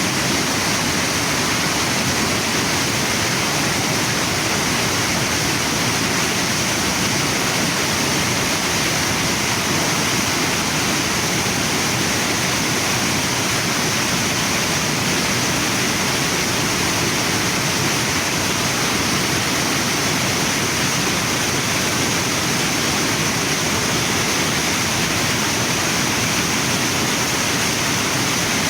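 Waterfall and river water rushing steadily, an even, unbroken sound.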